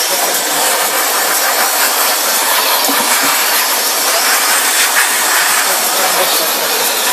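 iClean dog wash's built-in blow dryer blowing a steady, loud rush of air through its hose onto a large dog's wet coat to dry it.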